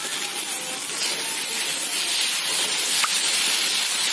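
Pieces of hog plum sizzling steadily as they fry in oil in a steel kadai, a little louder from about a second in, with one light click near the end as the metal spoon stirs them.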